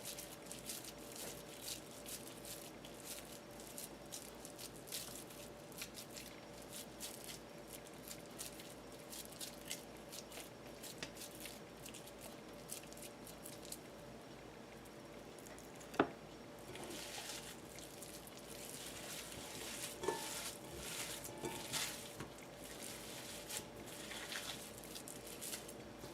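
Hands shaping raw ground beef into patties: faint squishing and patting of the wet meat, with a single sharp click about sixteen seconds in.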